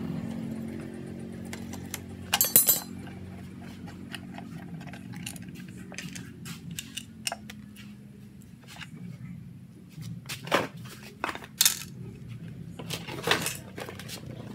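Scattered metallic clinks and clicks of tools and engine parts as the cylinder head is worked loose and lifted off a Honda Vario 150 scooter engine. There is a louder clank about two and a half seconds in and several more in the last few seconds.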